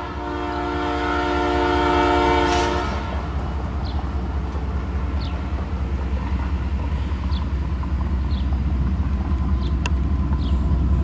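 A GE AC4400CWM freight locomotive's horn sounds one multi-note chord that cuts off about three seconds in. It is followed by the low, steady rumble of the approaching diesel locomotives, which slowly grows louder.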